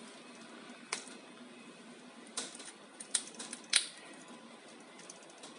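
A few light, sharp clicks and taps from handling a phone screen assembly and small tools on the workbench, the loudest about four seconds in, over a faint steady hiss.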